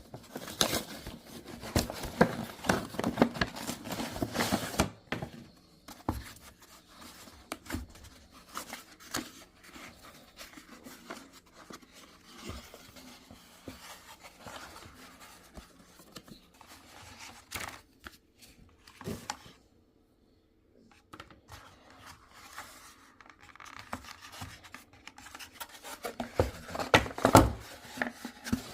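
Unboxing a camera: packaging handled and opened, with rustling, tearing and clicking of cardboard and plastic. It is busiest for the first five seconds and again near the end, with quieter handling and a brief pause in between.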